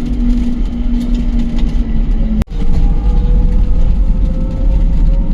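Steady low road and engine rumble from riding a three-wheeler along a busy highway. A steady hum breaks off with a brief dropout about two and a half seconds in, and a faint slowly rising whine follows.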